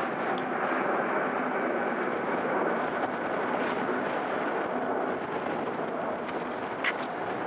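Singapore Airlines Airbus A380's four Rolls-Royce Trent 900 turbofan engines making steady jet noise as the airliner climbs out overhead after takeoff. The noise eases slightly in the second half, and a short sharp click comes about seven seconds in.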